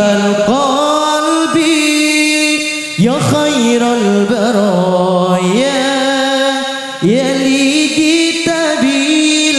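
Sholawat, Islamic devotional singing, sung in long held melodic phrases that slide between notes, with new phrases starting about three seconds in and again about seven seconds in.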